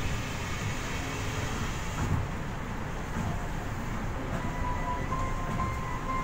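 Rubber-tyred Yui Rail monorail train running along its elevated guideway, a steady rumble heard from inside the train. About four seconds in, faint steady tones begin, stepping between pitches like the start of a melody.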